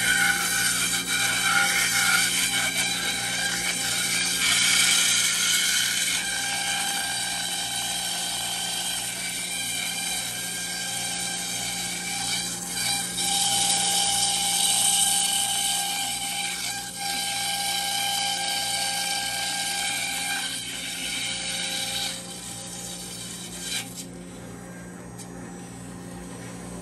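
CNC router spindle running and milling a styrofoam block: a steady whine with several tones over a rushing noise. It gets quieter for the last few seconds.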